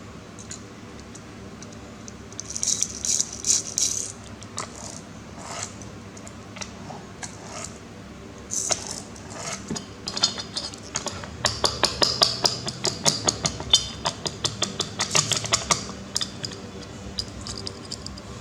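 Small plastic toy car parts clicking and rattling as they are handled and fitted together by hand. There is a short cluster of clicks about three seconds in, then a longer run of rapid clicks in the second half.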